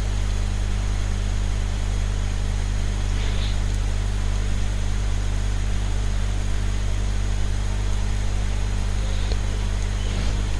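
A steady low hum with hiss, with a few faint short scratches of a marker pen drawing along a plastic ruler on paper.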